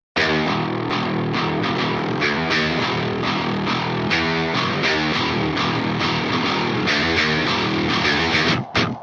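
Background music with guitar and a steady beat, starting after a short gap and cutting out briefly just before the end.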